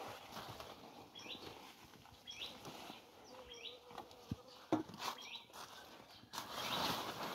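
Pumpkin leaves rustling and knocking as flowers are picked by hand, with a brief insect buzz. A short high chirp repeats four times about a second apart, and a louder rustle comes near the end.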